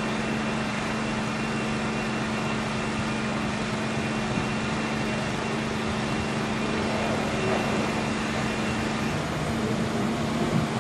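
Steady rushing noise and a constant low hum as a passenger train approaches along the platform, growing slightly louder near the end.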